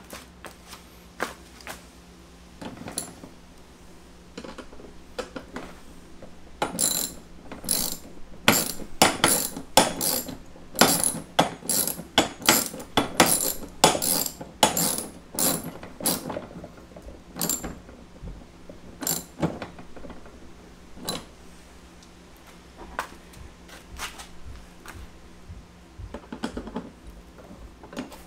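Socket ratchet wrench clicking in quick runs of strokes as a nut on the cart is tightened; the clicking is densest through the middle and turns sparser later.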